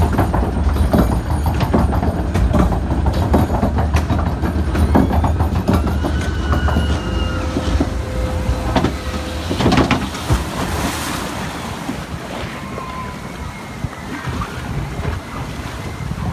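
Arrow Dynamics log flume boat riding the lift conveyor with a steady clattering rumble. The boat then runs through the water channel with water rushing and churning around the hull. The rush surges loudest about ten seconds in and eases afterwards.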